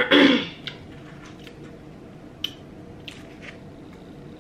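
Eating noises at a table: a short vocal mouth sound right at the start, then a few faint, sharp crisp crackles from a fried egg roll.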